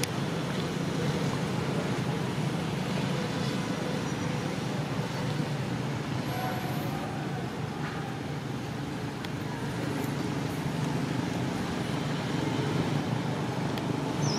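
Steady outdoor background noise, a low rumble and hiss like distant traffic, with no distinct monkey calls.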